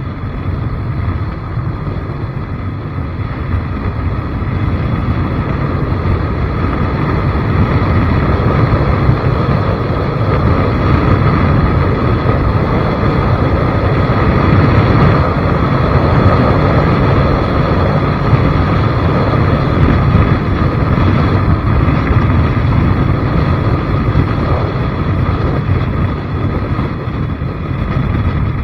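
Steady vehicle riding noise, engine and rushing air blended together, with wind buffeting the microphone. It grows louder over the first several seconds and then holds.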